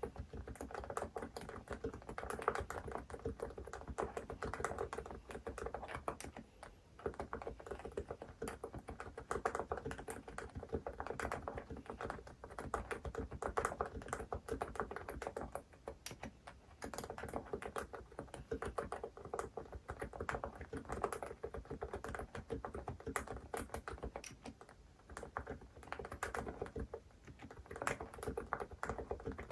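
Continuous fast typing on a fully lubed Hansung GK868B TICO capacitive keyboard: a dense run of keystrokes with brief pauses about 7, 16 and 25 seconds in.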